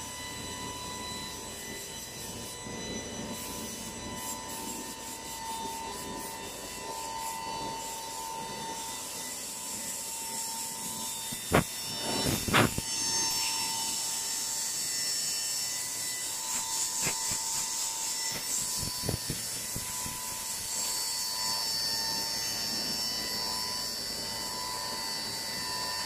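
Reignmac RMD6025M double-end tenoner running: a steady whine from its spindle motors and a hiss as a buckle wallboard panel feeds through the cutters. Two sharp knocks come about halfway through, followed by a few lighter clicks.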